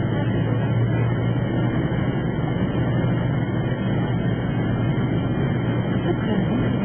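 Steady low drone and rushing noise inside an airliner cabin just after landing, an unbroken hum with no changes.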